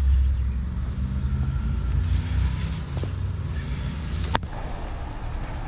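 A heavy engine running nearby: a steady low rumble, loudest in the first two seconds and then easing. Grass and brush rustle as someone pushes through, with a sharp crack about four seconds in.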